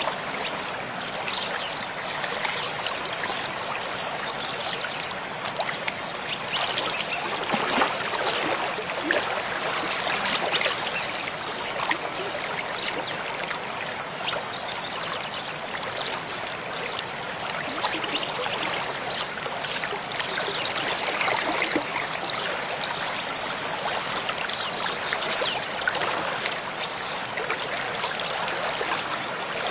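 Mountain stream flowing steadily over rocks, a constant rush of water with many small splashes and gurgles.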